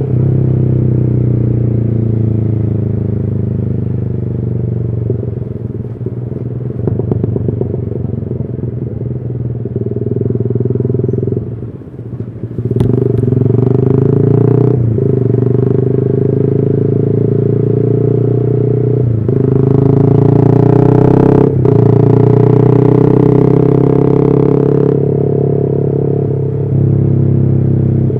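Yamaha R15 V3's 155 cc single-cylinder engine with a custom exhaust running as the bike is ridden, its note rising and falling with the throttle; it eases off briefly about twelve seconds in, then pulls harder again.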